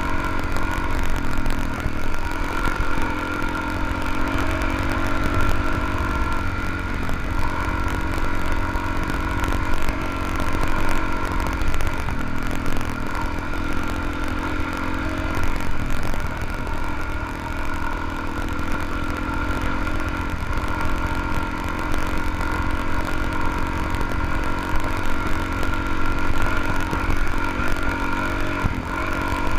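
Dual-sport motorcycle engine running while riding a gravel dirt road, heard from on the bike. The engine note steps down and back up several times with throttle and gear changes, over a constant low rumble.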